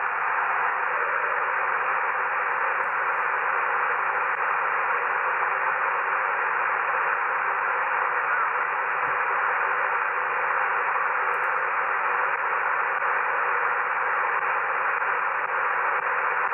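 Icom IC-R71E shortwave receiver giving a steady band hiss from its speaker while being tuned up through the 20-metre band between stations, with no voice coming through.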